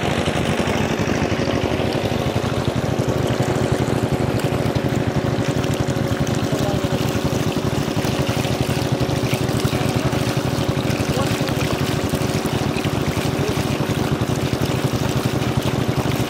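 Engine-driven water pump running steadily, with water pouring from its discharge pipe into a basket.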